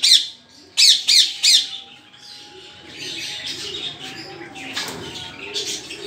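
Rose-ringed parakeet screeching: three loud, sharp calls that fall in pitch, about a second in. Quieter chirping of other small aviary birds follows.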